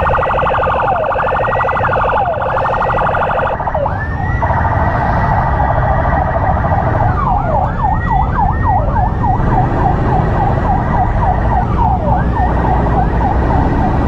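Several electronic emergency sirens from an ambulance and its motorcycle escort sounding at once: a rapid warble for the first few seconds, then a steady wail, with repeated short rising-then-falling whoops throughout. Motorcycle engine and road noise run low underneath.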